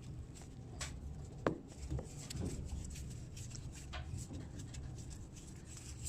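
Hand tool cutting through a copper water pipe: faint irregular scraping and clicks, with one sharper click about a second and a half in.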